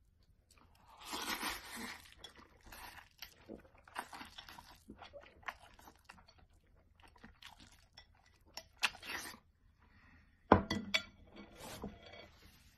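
Close-up eating noises: noodles being slurped and chewed in irregular noisy bursts, with scattered sharp clicks and one sudden loud knock about ten and a half seconds in.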